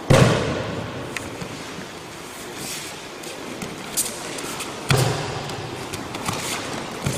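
Thuds of bodies and feet landing on the dojo mats during aikido throws and pins. A heavy thud comes just at the start and another about five seconds in, with a lighter knock near the end.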